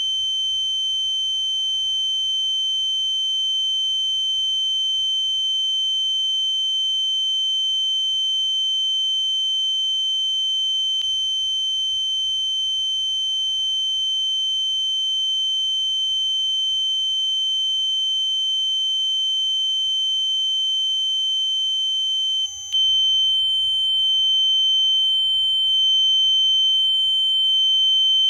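Synthetic ear-ringing (tinnitus) sound effect: a steady high-pitched tone with fainter steady overtones held without a break. It dips for a moment about three quarters of the way through, then carries on slightly louder.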